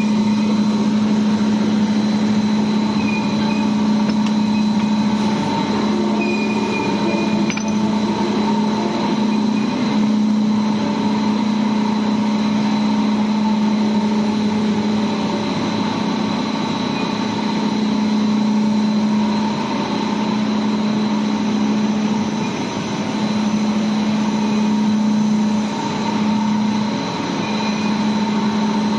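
Machinery of a 15 t/h biomass-fired steam boiler plant running: steady mechanical noise with a strong, constant low hum and fainter higher tones above it.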